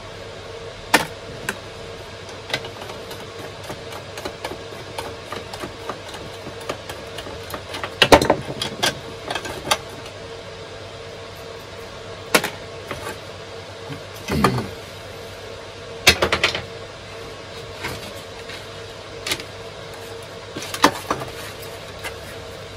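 Handling noise at a wooden workbench: thin cable rustling and scattered clicks and knocks as wire and plastic weather-station parts are moved about. Under it runs a steady hum from servers in the workshop.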